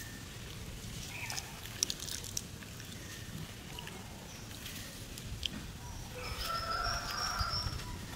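Long-tailed macaques shifting on rock and dry leaves, with small rustles and clicks over a low rumble, and a brief animal call about six seconds in.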